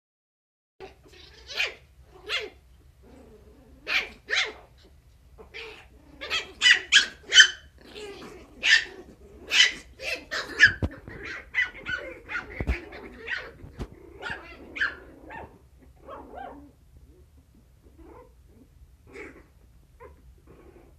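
Puppies yapping in short, high-pitched barks as they play-fight, thickest in the middle and thinning out over the last few seconds.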